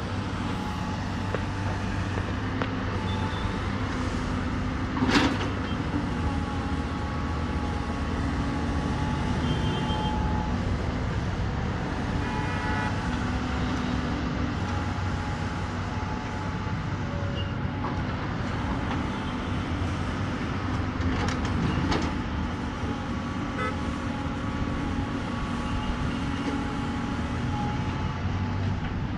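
Steady low engine rumble, with a few brief high beeping tones and two sharp knocks, one about five seconds in and one a little past twenty seconds.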